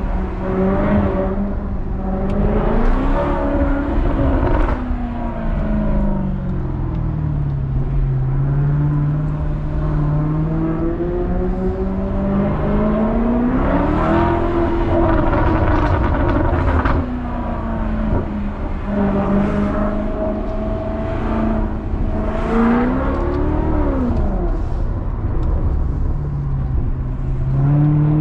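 Maserati Quattroporte's V8 engine and loud aftermarket exhaust, heard from inside the cabin while driving. The engine note climbs under acceleration several times and drops back between pulls, with a steady cruising note for a few seconds in the middle.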